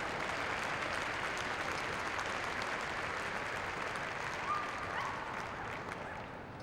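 Arena crowd applauding, a steady clapping that tails off near the end.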